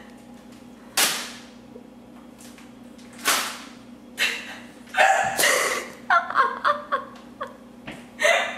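A person hiccuping: about five sharp, sudden hiccups spaced irregularly a second or more apart, with a run of quick, short voiced sounds between them in the second half.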